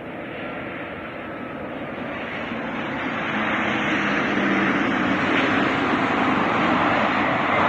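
Engines of a Ryanair Boeing 737 jet airliner coming in to land, a steady rushing jet noise that grows louder throughout as the plane approaches.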